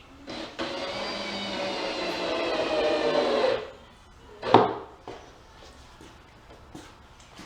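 Power drill driving a screw into a wooden pool table skirt board: a steady motor whine for about three seconds that drops slightly in pitch as the screw seats, then stops. A single sharp knock follows about a second later.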